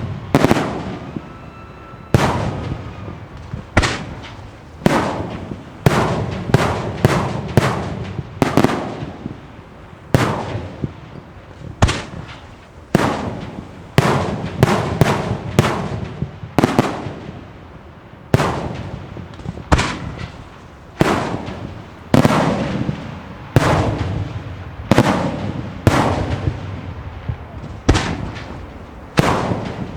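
Fireworks display: a steady run of loud bangs, one or two a second, some in quick clusters, each leaving a long echoing tail. A faint whistle sounds about a second in.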